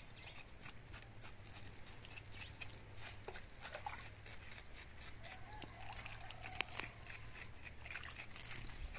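A kitchen knife scraping the skin off a chayote root, a long run of faint, quick scratches. A faint animal call comes in about five seconds in.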